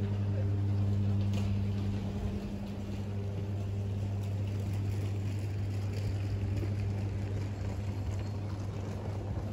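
A steady low mechanical hum, like a motor running, with open-air street ambience around it.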